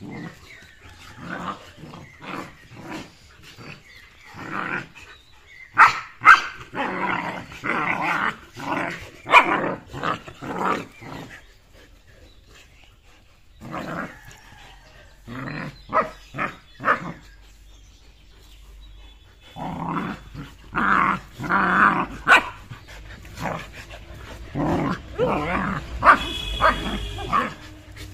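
Two German Shepherds, a puppy and an older young dog, growling and barking as they play-fight. The noise comes in several bursts with short lulls between.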